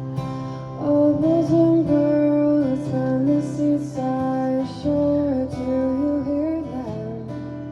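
A roots-pop song performed live: a woman sings long, held notes over strummed acoustic guitar. Her voice comes in about a second in and fades back near the end.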